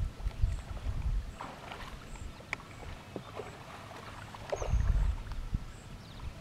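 Bull moose wading and feeding in shallow pond water: splashing and dripping water, with uneven low thuds loudest at the start and about five seconds in. A faint high chirp repeats about once a second.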